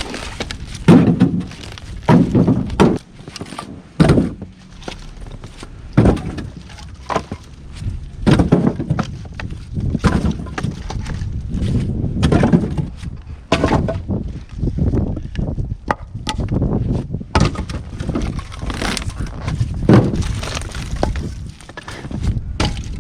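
Split ash firewood thrown piece by piece onto a load, a loose run of hard wooden knocks and clatters, one or two a second.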